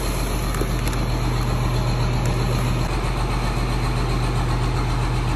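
Engine idling steadily, a low even hum.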